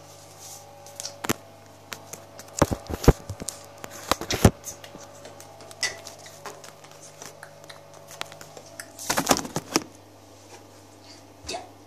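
Handling noise of a handheld phone being moved about: scattered clicks and knocks, with a burst of knocks about nine seconds in, over a faint steady low hum.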